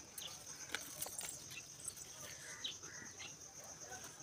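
Faint outdoor ambience: a steady, high, evenly pulsing insect chirring, with scattered bird chirps and a few small clicks.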